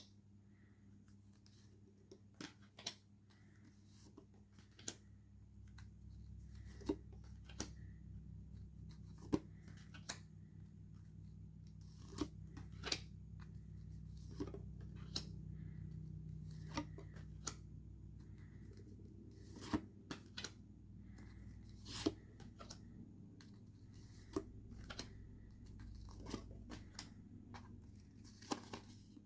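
A stack of card postcards being leafed through by hand: irregular sharp snaps and slides of card stock, roughly one a second, over a low steady hum.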